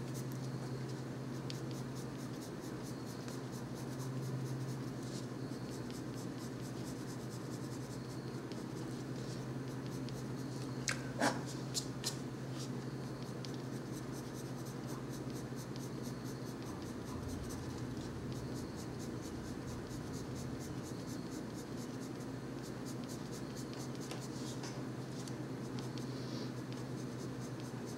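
Colored pencil scratching on paper in steady, fine strokes as blue is laid down over an umber underdrawing. A few sharper clicks come about eleven seconds in.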